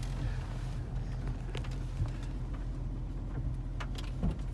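Steady low rumble of a car heard from inside the cabin, with a few light clicks.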